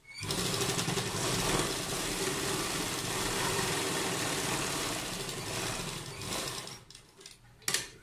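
Sewing machine running as it stitches a strip of cloth along a kurta's neckline: it starts at once, runs steadily for about six and a half seconds, then slows and stops, with a sharp click near the end.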